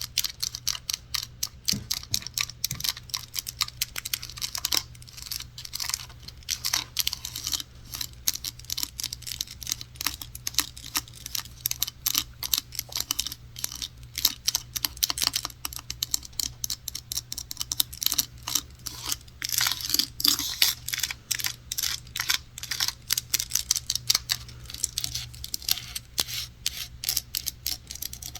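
Rapid, irregular tapping and scratching on objects close to the microphone, many taps a second with no pause. A faint steady low hum runs underneath.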